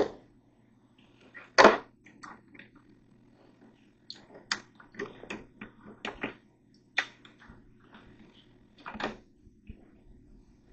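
A string of irregular sharp clicks and knocks from hard objects being handled, the loudest about two seconds in and again near the end, over a faint steady hum.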